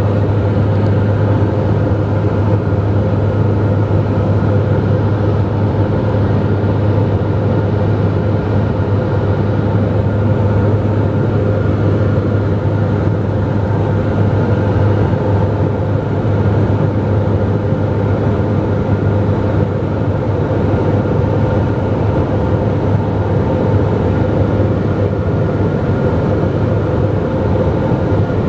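Cabin noise of a New Central Airlines Dornier 228 twin turboprop in flight: a loud, steady propeller and engine drone with a strong low hum.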